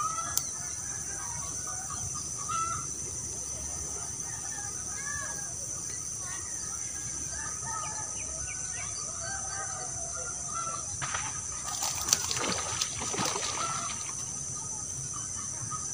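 Birds calling on and off, over a steady high-pitched hiss, with a louder burst of rustling and clicking about eleven seconds in that lasts some three seconds.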